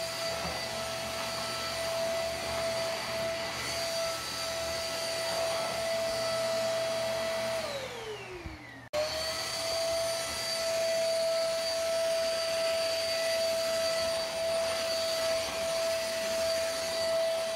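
JML eVac bagless handheld vacuum cleaner running with a steady high whine. About eight seconds in, its pitch falls away and it cuts out, then it is running at full speed again a moment later.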